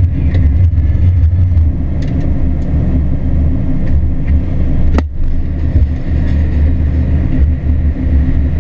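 John Deere combine running under harvest load with a steady, heavy low rumble, and a single sharp click about five seconds in.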